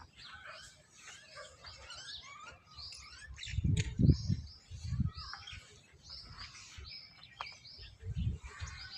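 Many small birds chirping and twittering busily, with a few low dull bumps about midway and near the end.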